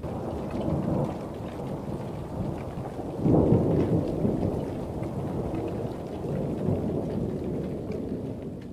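Thunder rumbling continuously over falling rain, swelling louder a little over three seconds in.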